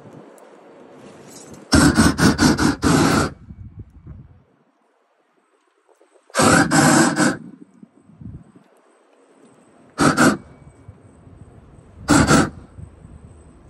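Gas roofing torch blasting flame in four short bursts over bitumen membrane, the longest about a second and a half, with a low hiss between bursts.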